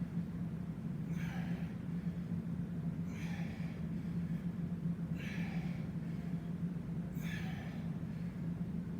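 A man breathing hard from exertion, with a sharp, hissy exhale about every two seconds, over a steady low hum.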